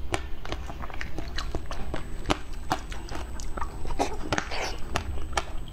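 Close-miked wet mouth sounds of biting into a large wobbly jelly: repeated sharp squelchy clicks, with a longer slurping smear about four seconds in.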